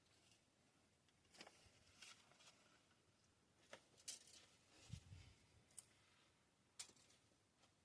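Near silence with faint, scattered clicks and light rustles of small objects being handled, and a soft low thump about five seconds in.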